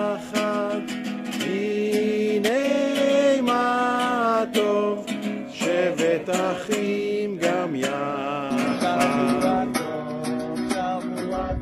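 A song: a voice singing held notes over a strummed acoustic guitar.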